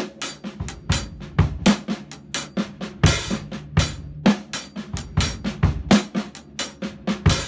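Drum kit playing a slow swung groove in 6/4: a swing rhythm on the hi-hat over bass drum, with snare hits and quiet ghost notes on the snare.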